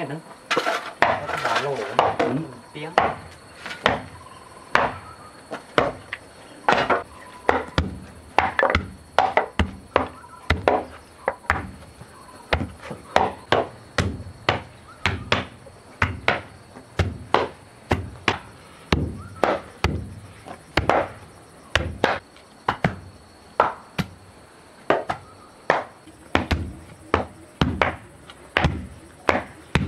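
A hand tool striking wood over and over, about one or two sharp blows a second, some coming in quick pairs.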